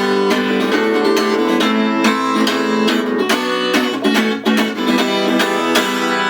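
Acoustic guitar strummed in the instrumental closing bars of a song, with no singing.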